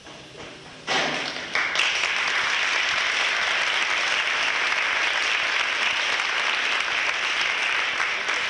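Audience applause, breaking out suddenly about a second in and then holding steady as dense clapping.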